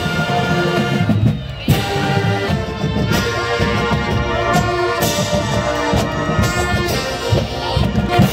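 College marching band playing: brass holding loud sustained chords over steady drum hits.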